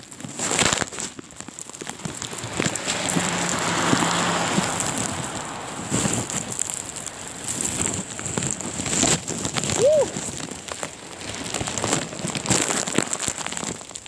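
Wind-driven snow pelting the microphone of a handheld device: a dense, uneven patter with crackling handling noise that swells a few seconds in. A short rising-and-falling tone sounds once, about ten seconds in.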